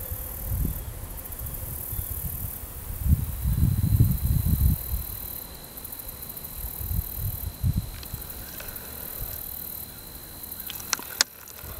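Wind buffeting the microphone in uneven gusts, with a faint steady high whine from about three seconds in and a few sharp clicks near the end.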